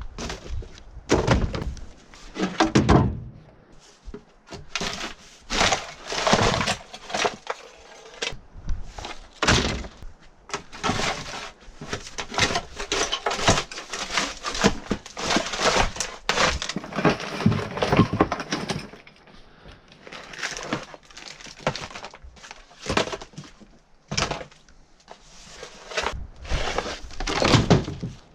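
Irregular cracks, thunks and scrapes as debris is broken up and cleared out of an abandoned RV's interior, with sharp impacts coming every second or so.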